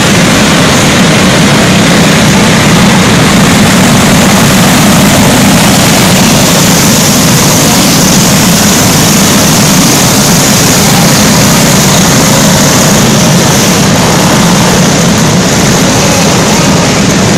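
A pack of racing go-karts running together on a dirt track, their small engines making a loud, steady drone.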